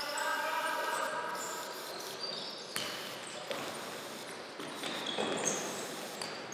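Futsal play on a wooden sports-hall floor: the ball being kicked, with a few sharp knocks a few seconds in, and shoes squeaking on the boards. A player's shout sounds in the first two seconds, and it all echoes in the hall.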